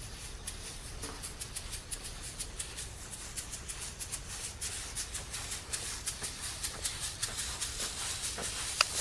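Footsteps crunching on dry, cloddy tilled soil, a gritty crackle several times a second that grows louder as the walker comes closer, with one sharp click near the end.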